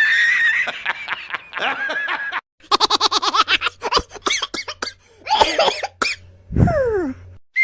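Cartoon-style sound effects of a voice laughing in quick repeated bursts, with a short falling tone near the end.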